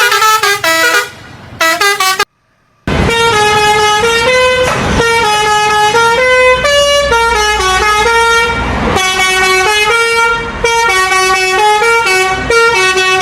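Bus telolet horn, a Basuri multi-tone musical horn, playing a tune of stepping notes. It cuts out briefly about two seconds in, then plays on without a break over a low rumble.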